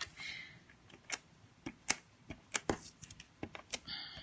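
Paper and cardstock pieces being handled and set down on a craft mat: faint, scattered light clicks and taps, a dozen or so, with a brief higher-pitched rasp near the end.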